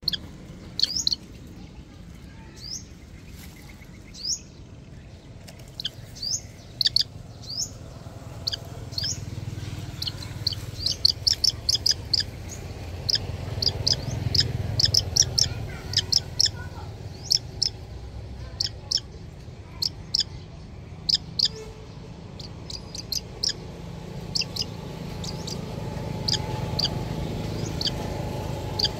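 Young hawk calling with repeated short, high, rising chirps: spaced out at first, then in quick runs of several in a row around the middle, then spaced out again. A low steady rumble lies underneath.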